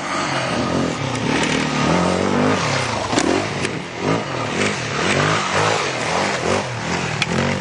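Yamaha WR450F's single-cylinder four-stroke engine revving up and down over and over as the dirt bike is ridden hard off-road, with a few sharp clicks.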